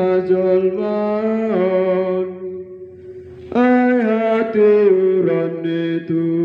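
A man chanting a liturgical text solo, holding long notes on a reciting tone that steps up and down in pitch. He pauses briefly a little after two seconds in, then resumes.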